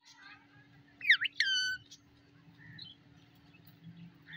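Caged green parakeet calling. A few faint chirps at the start, then about a second in a loud cry: a quick downward-and-back-up sweep, then a short held, ringing note.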